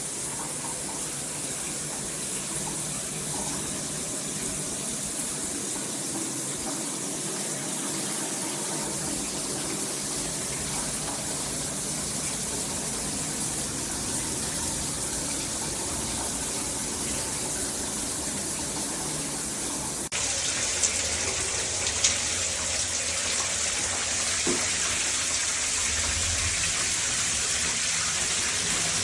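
Shower water spraying steadily from a Hibbent dual rainfall and handheld shower head combo. About two-thirds of the way in, the spray changes abruptly and gets a little louder, followed by a couple of sharp clicks.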